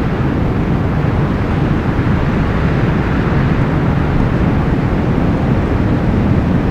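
Strong wind blowing steadily, a deep, even rushing noise.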